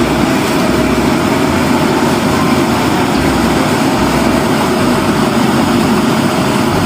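Steady, loud engine running, a rough even rumble that starts and stops abruptly.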